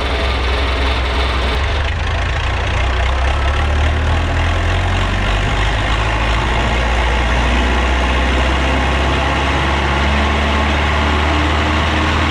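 Engine idling steadily with a constant low drone.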